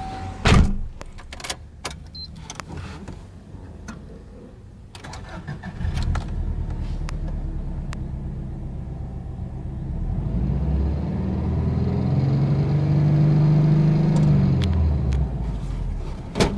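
A thump about half a second in and a few light clicks, then a Subaru Impreza WRX STi Version V's turbocharged 2.0-litre flat-four is started about six seconds in and settles into a fast cold idle, heard from inside the cabin. Its engine speed rises for a few seconds and drops back again near the end.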